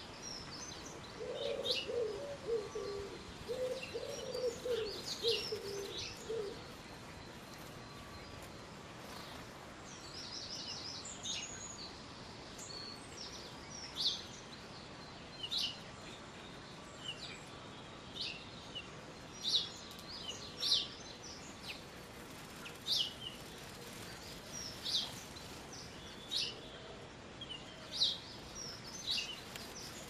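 Wild birds calling and chirping in short, high notes, scattered irregularly throughout. A low, repeated cooing runs through the first six seconds or so.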